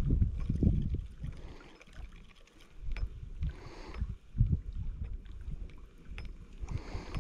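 Wind buffeting the microphone in gusts, fading about two seconds in and picking up again, with small waves lapping at the shoreline.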